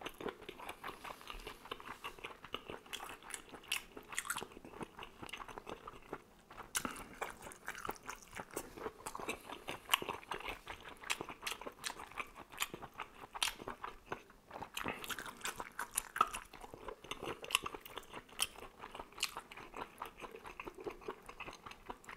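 Close-miked chewing and biting of squid and vegetable tagine: wet mouth sounds with many small, irregular sharp clicks.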